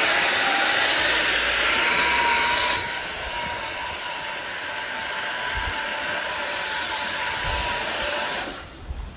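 Dyson PencilVac cordless stick vacuum running, its high-speed Hyperdymium motor giving a steady rushing whine with a thin steady tone. It drops a little in level about three seconds in and dies away near the end as it is switched off.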